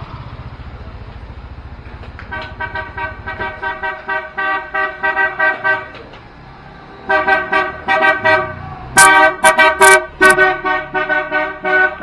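Bighorn aftermarket horn fitted to a Yamaha NMAX scooter, sounded in strings of rapid short toots with a few longer, louder blasts about nine to ten seconds in. The scooter's engine hums underneath at the start.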